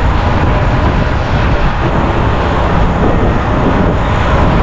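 Wind rushing over the microphone with road noise while riding a scooter: a steady, loud, low rumble.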